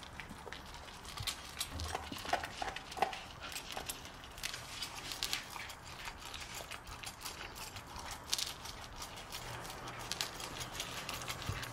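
Labrador retriever eating dry kibble from a plastic slow-feeder bowl: irregular crunching and chewing, with kibble clicking against the bowl all the way through.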